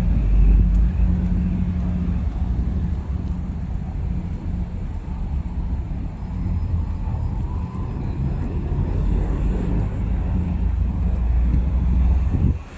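Outdoor city ambience: a steady low rumble throughout.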